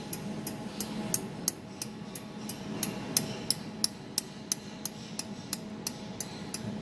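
Jewelry laser welding machine firing repeated pulses, each a sharp tick, about three a second at an even rate, over the machine's steady low hum.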